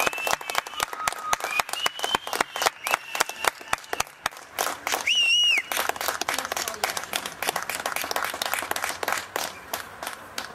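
Fireworks crackling in rapid, irregular pops, mixed with several short whistles from whistling fireworks, one of them about halfway through.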